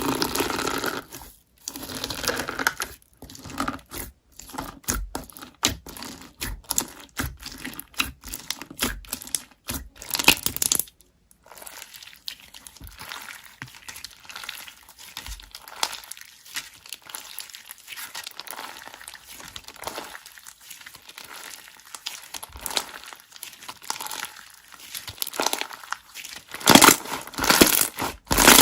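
Slime being squished, pressed and stretched by hand, making dense crackling clicks and pops. It is louder at the start and again near the end, with a softer stretch in the middle.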